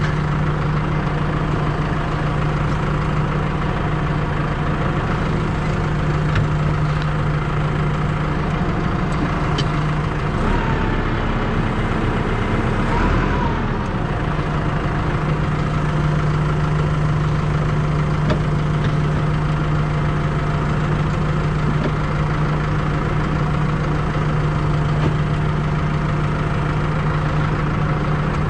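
Small farm tractor's engine running at a steady idle. About ten seconds in its note wavers and glides up and back down for a few seconds, as with a touch of throttle, then settles back to the same steady running.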